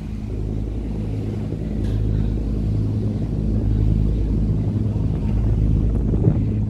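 Boat engine running steadily, a low droning hum heard on board, over a haze of wind and water noise.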